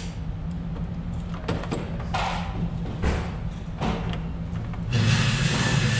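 Small metallic clicks as .22LR cartridges are loaded one at a time through the loading gate into the cylinder of a Ruger single-action revolver, over a steady low hum. A loud, steady rushing noise sets in near the end.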